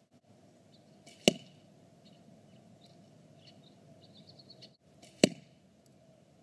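Primitive bow and arrow being shot: two sharp snaps about four seconds apart, the first a little over a second in.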